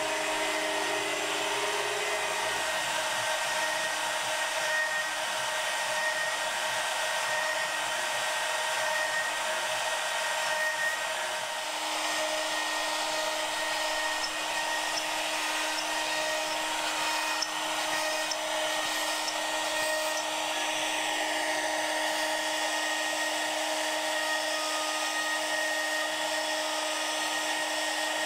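CNC router's electric spindle running at speed, a steady high whine, with the bit cutting slot pockets into the spoilboard.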